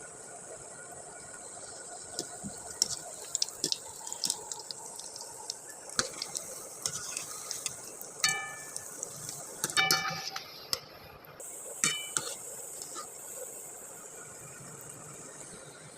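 Kitchen preparation sounds: small clicks and wet handling noises, with metal utensils clinking against a steel vessel three times and ringing briefly, about 8, 10 and 12 seconds in.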